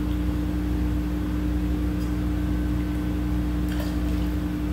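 A steady machine hum from bar equipment, with a low pitched drone, fills the room. Near the end a brief, faint splash is heard as a jigger of lime juice is tipped into a metal cocktail shaker.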